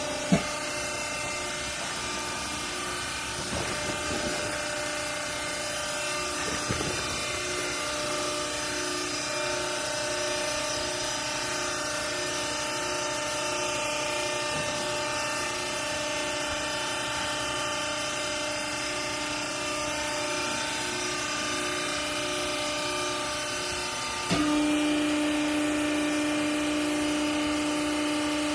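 Hydraulic baler's electric motor and pump running with a steady hum. About three-quarters of the way through it suddenly gets louder and stays so, with a sharp click just after the start.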